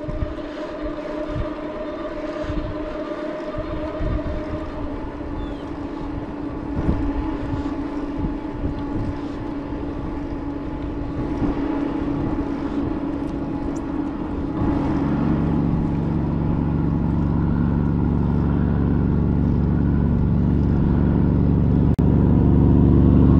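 Wind buffeting the microphone with a steady hum while riding. Then, from about fifteen seconds in, a motor vehicle's deep engine drone comes up on the highway and grows steadily louder toward the end.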